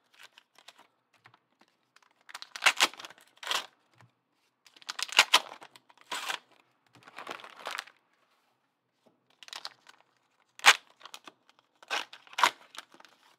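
Foil wrappers of AFLW TeamCoach trading-card packs being torn and crinkled by hand, in about six short bursts with pauses between them.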